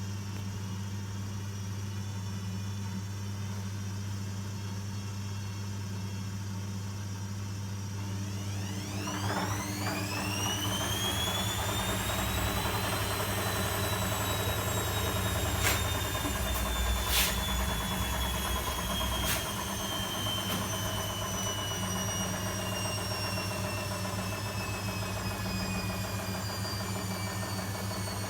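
Privileg washing machine running with a steady low hum. About nine seconds in its motor whine rises quickly in pitch, then sinks slowly, with a few sharp knocks from the machine in the middle.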